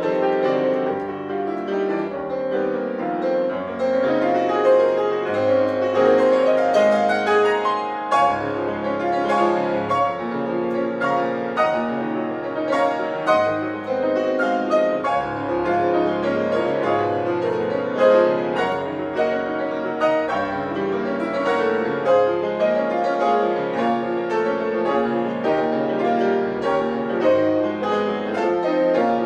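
Grand piano played solo: a classical piece with a continuous flow of notes.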